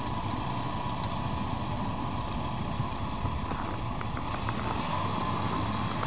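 Farm tractor and pickup truck engines running steadily under load as the tractor pulls the stuck pickup out of a snow drift, with a faint steady high whine and a few small clicks past the middle.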